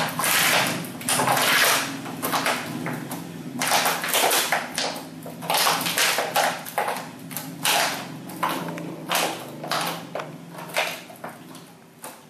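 Siberian husky chewing an empty plastic bottle, the plastic crackling and crunching in irregular bursts several times a second.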